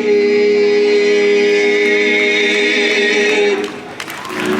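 Barbershop quartet singing a cappella in close harmony, holding one long chord that breaks off about three and a half seconds in, with a new chord starting just before the end.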